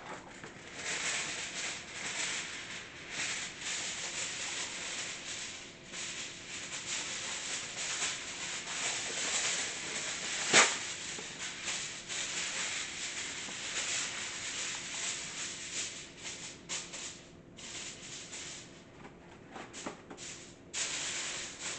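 Aluminium foil being pulled off the roll, crinkled and pressed over an oven rack: a long, irregular crackling rustle with one sharp click about halfway through.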